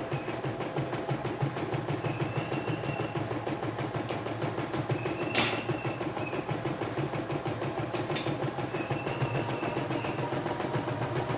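CNY E960 embroidery machine stitching a design on its own, the needle running in a fast, steady rhythm as the hoop carriage moves the fabric. A short high whine comes and goes every few seconds, and there is one sharp click about five and a half seconds in.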